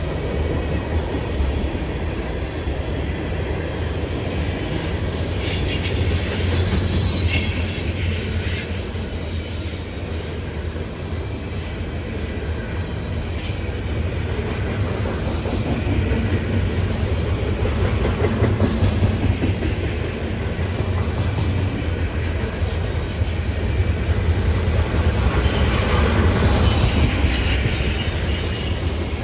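Freight train cars rolling past with a steady rumble and rattle of wheels on the rails. The wheels squeal in a high pitch a few seconds in and again near the end.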